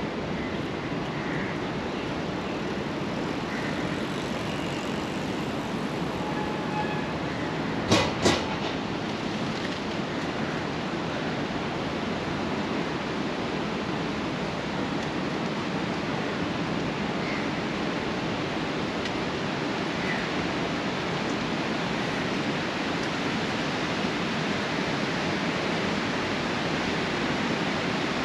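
Steady outdoor ambient rush, an even noise with no clear single source, broken by two sharp knocks in quick succession about eight seconds in.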